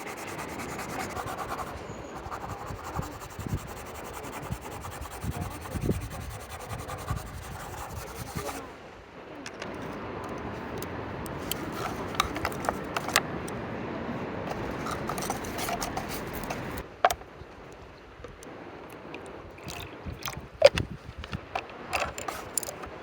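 Strokes scraping and rubbing on sketchbook paper, with scattered small taps and clicks. The texture changes abruptly about nine and seventeen seconds in.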